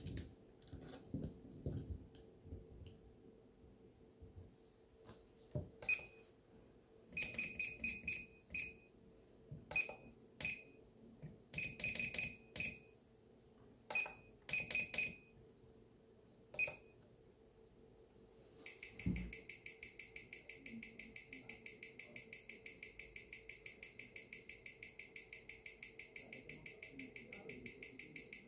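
Watch mounted on a timegrapher's microphone stand with a few knocks, then short electronic beeps as the timegrapher's buttons are pressed. From about two-thirds of the way in, the timegrapher's speaker plays the amplified ticking of a Seiko 6R15 automatic movement (Seiko Sumo SBDC001) at an even six beats a second (21,600 bph), a movement the owner says runs at low amplitude because of bad factory lubrication.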